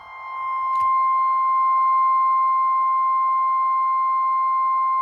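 NOAA Weather Radio 1050 Hz warning alarm tone: one loud, steady, high beep that swells up over the first second. A brief click comes about a second in. The tone signals that a warning broadcast follows.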